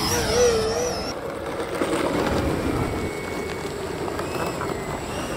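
Electric ducted-fan model jet whining as it lands and rolls along the runway. The whine wavers in pitch in the first second, then settles into a steadier, lower-level rush of fan noise.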